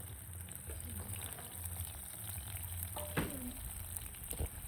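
Food sizzling as it fries in a pan, with a few light knocks and a short sound that glides downward about three seconds in.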